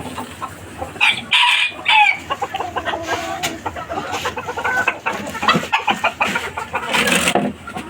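Domestic chickens calling: a rooster crows about a second in, with hens clucking around it and another loud call near the end.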